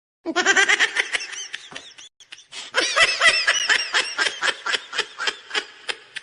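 High-pitched giggling laugh used as a meme sound effect. It comes in two runs of quick laugh pulses: a short burst, then after a brief gap a longer run that fades toward the end.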